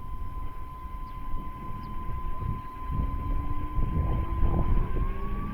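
Large electric RC scale helicopter (Eurocopter BK117 model) whining, with a lower tone that rises slowly as the rotor speeds up and a steady high whine that steps up slightly near the end. Wind buffets the microphone throughout.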